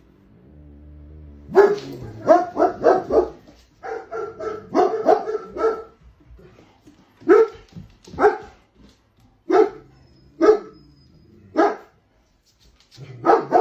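German Shepherd dogs barking: quick runs of barks from about a second and a half in, then single barks roughly a second apart, and another quick burst near the end.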